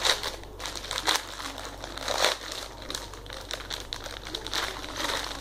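Plastic packaging bag crinkling in irregular bursts as it is handled and pulled open by hand.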